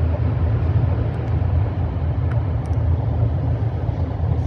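Steady low rumble of an Alstom Metropolis light-metro train running between stations, heard from inside the passenger car.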